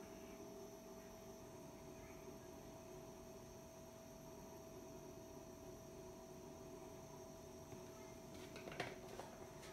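Near silence: a faint steady hum of room tone.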